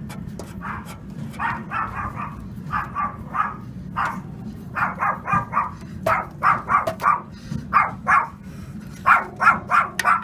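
A dog barking repeatedly in quick runs of short, sharp barks, more often and louder in the second half, over a steady low hum.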